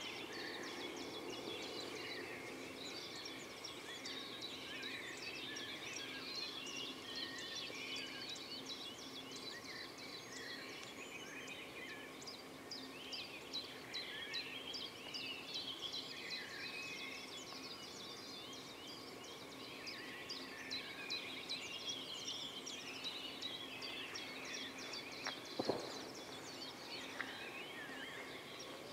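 Small birds chirping and twittering continuously over a faint steady hum, with a single sharp knock about 26 seconds in.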